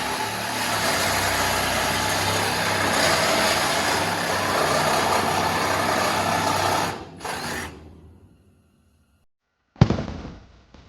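Loud, steady noise of metalworking on a car body, welding or grinding of the panels, that cuts out about seven seconds in. After a moment of silence comes one sharp hit that dies away.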